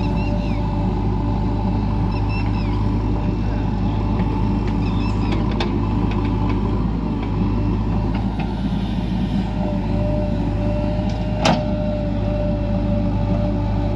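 Heavy diesel engine running steadily, with one sharp knock about three-quarters of the way through.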